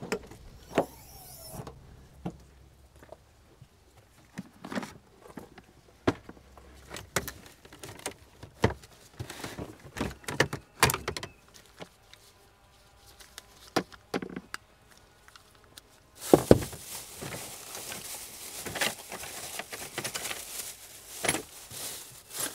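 Metal hand tools and sockets clinking and knocking as they are handled, then about sixteen seconds in an electric impact wrench runs for about six seconds.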